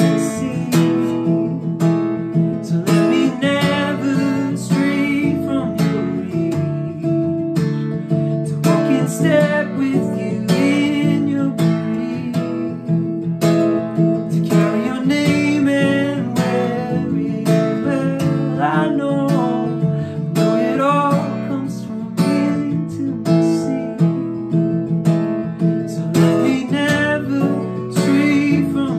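Acoustic guitar strummed steadily, with a man singing phrases over it.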